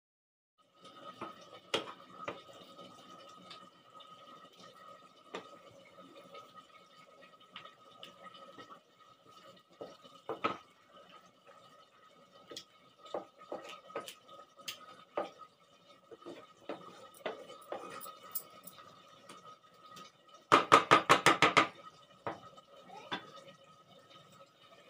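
Thick tomato chutney simmering in a pan, with scattered pops and the clinks of a spoon against the pan over a faint steady tone. About twenty seconds in comes a brief, loud, fast rattle of about a dozen quick knocks.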